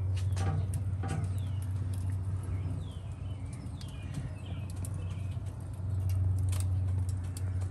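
A steady low hum, with birds chirping in short falling calls over it and scattered sharp clicks.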